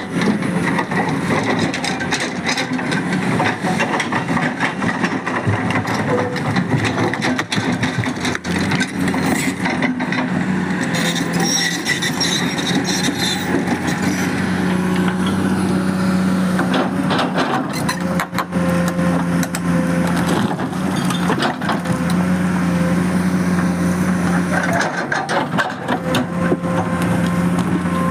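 Excavator's diesel engine running under load while the machine works against a large rock, with many sharp knocks and scrapes throughout. In the second half the engine settles into a steady hum in long stretches, broken every few seconds.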